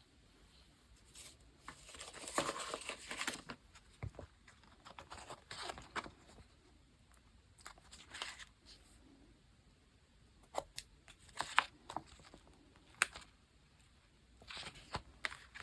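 Paper and sticker materials being handled at a desk: irregular rustling and scraping, the longest stretch lasting about two seconds near the start, then several short sharp clicks or taps in the second half.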